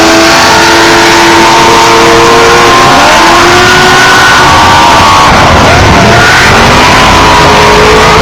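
Several off-road race vehicles (Trophy Trucks and Class 1 buggies) running hard at once, very loud, as they leave the race start. Their engine notes are mostly held steady, with some sliding up or down in pitch.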